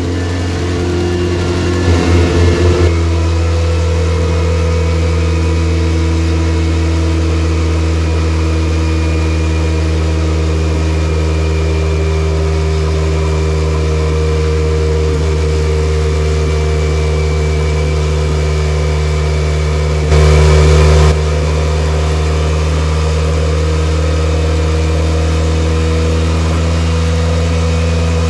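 Homemade 3-liter turbocharged sheet-metal engine running at a steady speed on a chassis dyno, with a few quick throttle blips about two seconds in and a brief louder surge of about a second near twenty seconds in.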